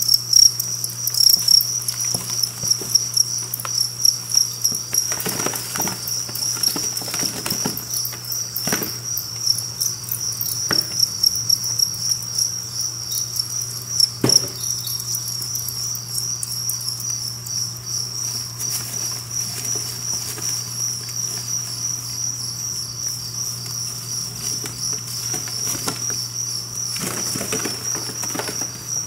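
Dense chorus of two-spotted crickets (Gryllus bimaculatus) chirping, a steady high pulsing trill. Scattered rustles and knocks come and go over it, and a low steady hum runs underneath.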